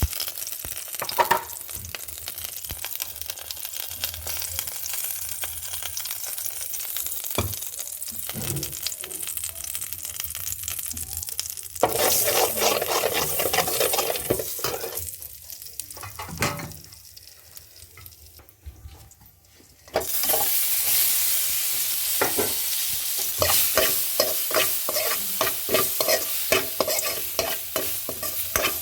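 Food sizzling in a hot pan while a spoon stirs and scrapes across it. The sizzle nearly fades out for a few seconds past the middle, then comes back loud with quick, repeated scraping strokes.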